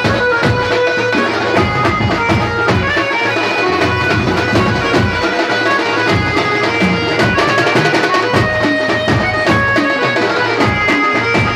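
Folk dance music: a wind instrument plays a melody of held, shifting notes over a steady drum beat, without a break.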